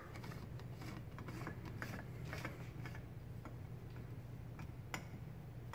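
A light bulb being screwed into the brass socket of an electric lamp burner: a few faint clicks and ticks from the turning screw base, over a steady low hum.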